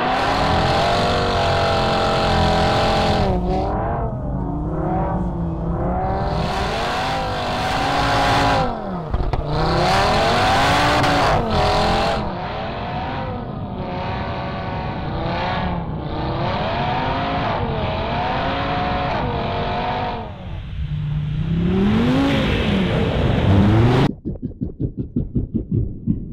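Car engine revving up and down repeatedly as the car drifts on an ice track, the pitch climbing and dropping with each push of the throttle. Near the end the sound breaks off suddenly into a rapid pulsing.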